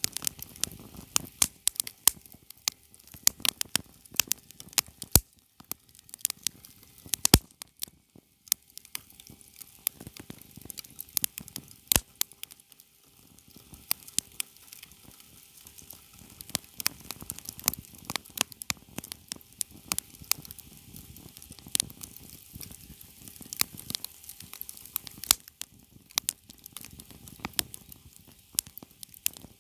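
Small wood campfire crackling, with irregular sharp pops and snaps over a soft hiss.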